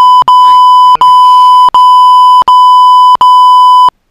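Loud, steady electronic beep tone of the kind edited in as a censor bleep, broken into six back-to-back pieces each under a second long by very short gaps, and cutting off near the end.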